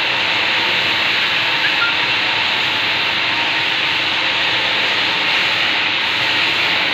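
Steady, unchanging hiss with a faint low hum underneath.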